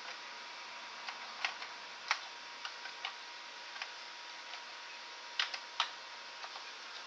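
Light, irregularly spaced clicks, about a dozen over several seconds, typical of keys being typed on a Commodore 64C keyboard to load a disk.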